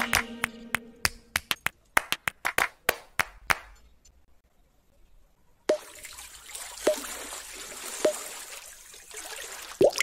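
Small homemade water fountain running: a steady trickle of water with drops plopping into the basin about once a second. Before it starts, about halfway in, background music fades out into a run of sharp clicks and a short silence.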